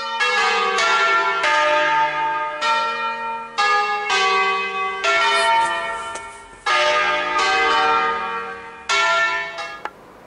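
Church bells ringing in a bell tower: about a dozen strikes in an uneven sequence on several bells of different pitch, each note ringing on over the next. The ringing cuts off sharply near the end.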